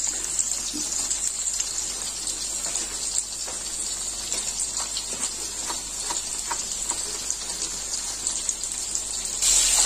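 Tempe frying in hot oil in a wok: a steady sizzle with scattered small pops and crackles. It turns louder just before the end.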